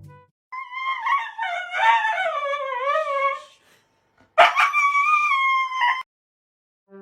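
A dog howls twice in a high pitch: first a long wavering howl that slides downward, then after a short pause a shorter, steadier howl that starts suddenly.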